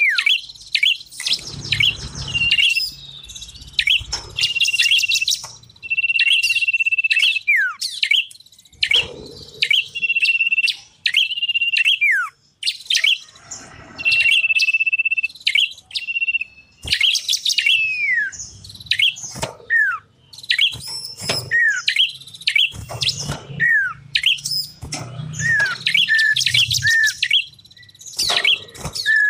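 Small songbirds calling loudly and without a break, as in a bird-luring recording. There are repeated long, steady, high whistled notes, short notes that slide downward, and busy sharp chirping trills.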